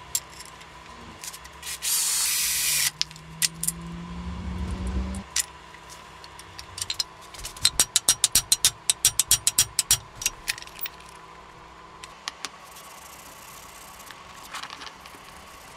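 Hand metalwork on a small steel lever clamped in a bench vise. A short hiss comes about two seconds in, then a rising hum that stops suddenly, and after it a quick run of sharp taps, about four a second, followed by a few scattered ones.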